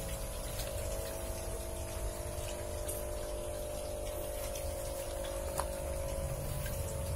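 Electric pond pump running with a steady hum over a low rush of moving water.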